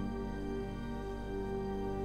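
Background music of long, held chords.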